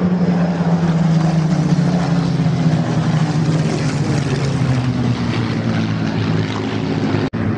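Supermarine Spitfire's V12 piston engine drone as the fighter flies past, its pitch falling slowly as it moves away. The sound cuts out for an instant near the end.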